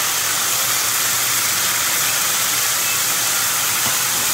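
Floured squid rings deep-frying in hot oil in a pan: a steady sizzle.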